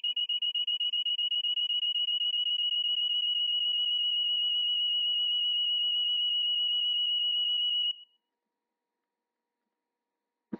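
A high-pitched electronic alarm-like tone, rapidly pulsing, that cuts off suddenly about eight seconds in; a single short click near the end.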